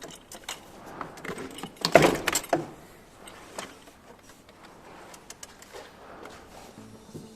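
Metal clinking and knocking from hand tools and parts during work on a car battery, with a louder clatter about two seconds in. Music starts near the end.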